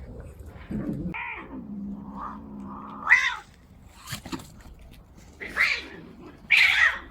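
Domestic cats squaring off: a low, drawn-out growling yowl, then three short, loud spitting screeches, the last the loudest.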